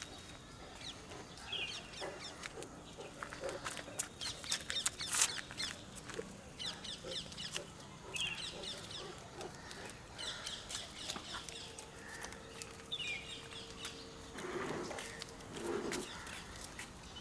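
Faint outdoor ambience of birds calling in short chirping bursts every few seconds, with scattered sharp clicks and taps.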